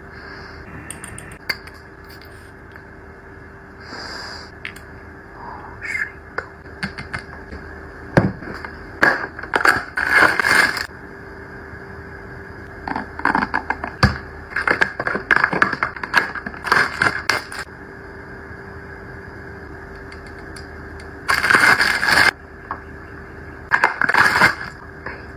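Cosmetic packaging and items being handled: irregular bursts of rustling and scraping, with a few clicks, over a steady faint hum.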